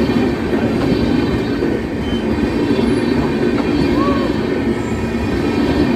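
A train passing close by, its coaches running over the rails with a steady rumble.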